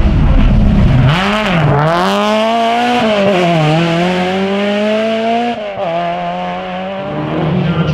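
Rally car engine pulling hard away through the gears, its pitch climbing and falling back at each upshift, growing a little fainter as the car draws away.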